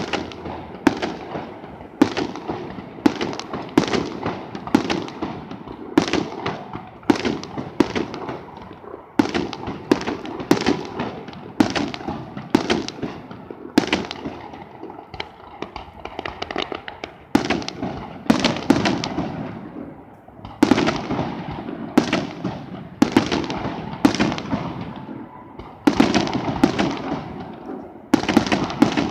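Aerial fireworks display: a rapid run of shell bursts, roughly one or two a second, each a sharp report followed by an echoing rumble.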